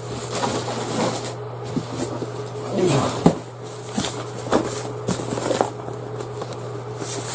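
Camping gear being handled and set down: scattered clicks, knocks and rustling over a steady low hum.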